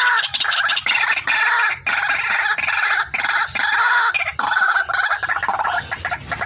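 White-breasted waterhen (ruak-ruak) calling in a fast, almost unbroken run of repeated pitched notes with only short breaks. It is the female's call, played as a lure to draw in waterhens.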